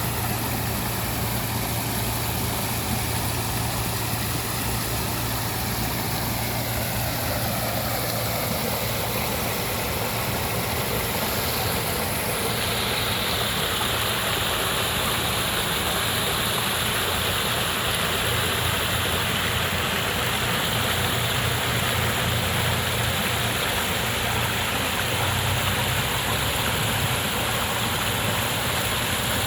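Waterfall: water falling and rushing steadily, with a low rumble underneath.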